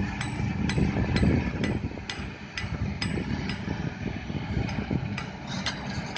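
Heavy diesel machinery running with a steady low rumble, overlaid by sharp regular ticks about twice a second.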